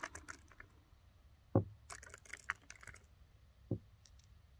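Light clicking and rattling, with two short dull thumps about a second and a half and nearly four seconds in: handling noise at a shooting bench.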